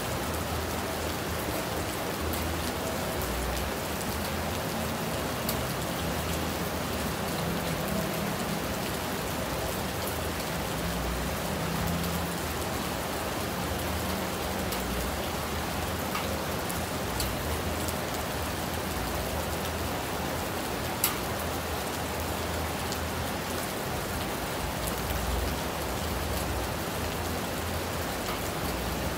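Steady rain falling, with scattered individual drops ticking through it and one sharper tick about two-thirds of the way through.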